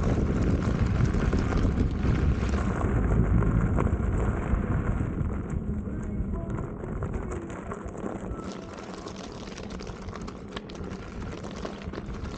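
Wind buffeting the microphone over the low rumble of a Begode RS HT electric unicycle rolling over a gravel trail, growing quieter about two-thirds of the way through.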